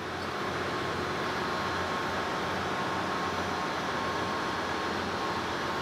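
Steady machinery and ventilation noise of a ship's engine room: an even rush with a low hum and a faint steady tone. It fades in over the first second and then holds level.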